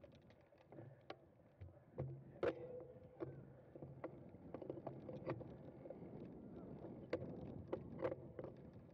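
Bicycle ridden over rough ground, with irregular clicks and rattles from the bike and a rush of wind on the microphone that grows louder toward the end.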